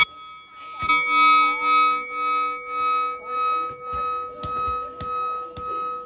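Music with steady held tones that swell about twice a second, starting suddenly, with a few sharp smacks of strikes landing on Thai pads over it.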